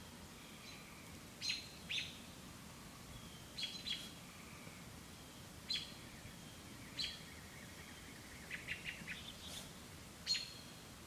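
Birds chirping: short, sharp chirps a second or two apart, with a quick run of several close together near the end, over faint outdoor background noise.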